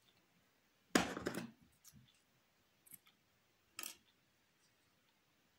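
Hands handling a crocheted doll, its yarn and needle on a wooden tabletop: a brief knock-and-rustle about a second in, then a few faint clicks.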